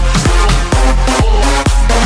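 Electronic dance music: a heavy kick drum with deep bass, about two beats a second.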